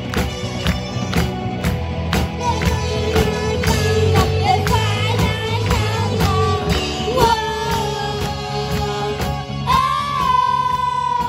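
A live rock band of children: young girls singing into microphones over electric guitar, drum kit and keyboard, with a steady drum beat at about two strokes a second. Near the end the singers hold a long note.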